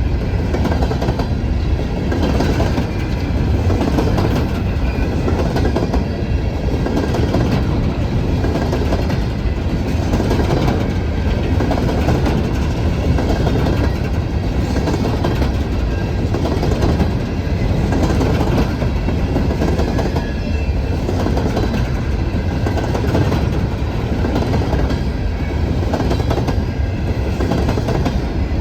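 Empty BNSF coal hopper cars rolling past at close range: a steady rumble of wheels on rail with a repeating clickety-clack as the trucks cross rail joints.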